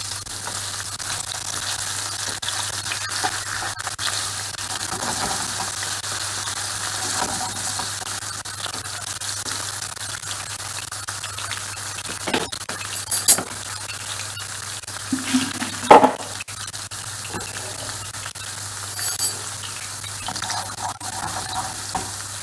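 Diced potatoes frying in oil in a nonstick pan, a steady sizzle, with a few sharp knocks around the middle.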